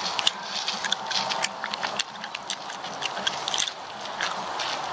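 Handling and walking noise on a handheld camera: irregular sharp clicks and taps over a steady rustling hiss.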